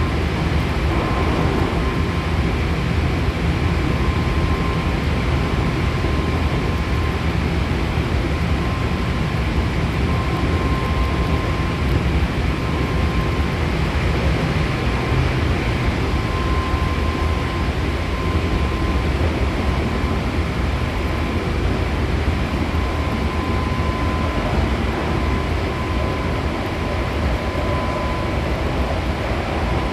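Hankyu Kyoto Line commuter train running between stations, heard inside the carriage: a steady rumble of wheels on the track, with a thin high tone that fades in and out.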